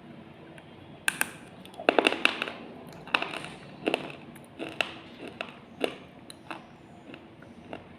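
Slate pencil being bitten and crunched between the teeth: sharp snaps and gritty crunches about once a second, loudest in a quick cluster about two seconds in.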